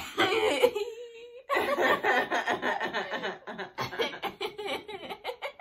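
A woman and a girl laughing hard together, mostly as a long run of quick pulsing laughs.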